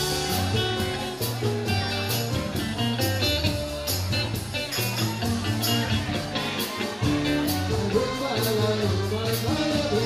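Live band playing: electric guitar, keyboard and drum kit over a steady beat and a low bass line.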